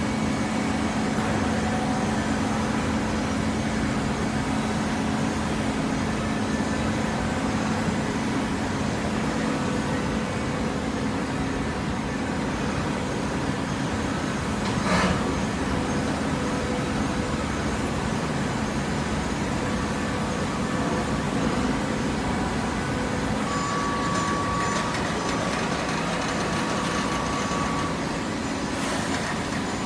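Cardboard shredder and automatic baler machinery running with a steady low hum. There is a brief sharp noise about halfway through, and a steady higher whine comes in about two-thirds of the way through.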